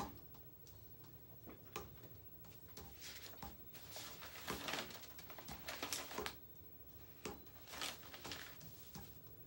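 Faint rustling and handling noises in a small room: scattered clicks and short noisy bursts over a low hum, the loudest around the middle.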